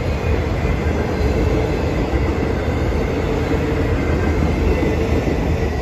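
Freight train of autorack cars rolling past at close range: a steady, heavy rumble of wheels on rail with a faint steady tone running over it.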